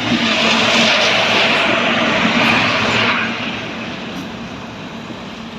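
Train passing close by on a neighbouring track: a loud rushing rumble that starts suddenly and eases after about three seconds but keeps going.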